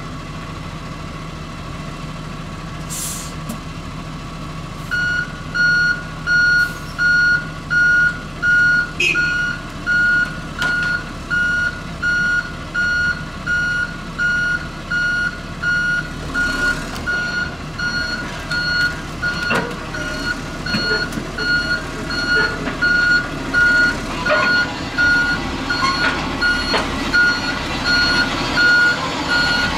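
Reverse alarm of a Kirovets K-525 tractor beeping about once a second as it backs down the ramps off a lowboy trailer, over its diesel engine running. The beeping starts about five seconds in.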